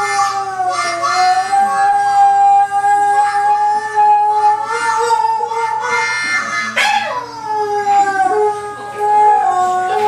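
Boxer dog howling in long, held howls along with harmonica music.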